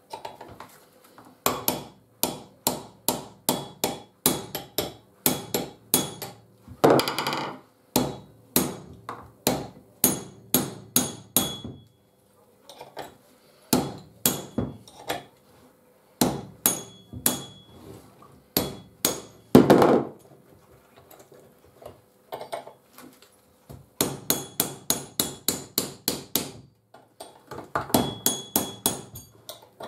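Ball-peen hammer tapping a cold chisel against a chainsaw clutch to turn it loose, in runs of sharp metallic strikes about two a second with short pauses. Blows of this kind are used to undo a clutch when the proper removal tool is not to hand.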